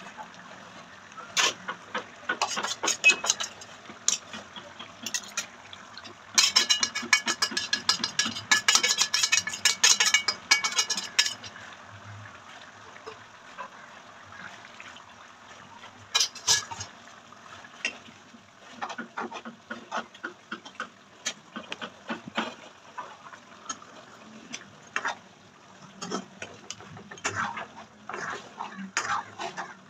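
Metal ladle stirring chicken curry in a metal kadai, clinking and scraping against the pan. A dense run of scraping about six to eleven seconds in is the loudest part, followed by scattered clinks.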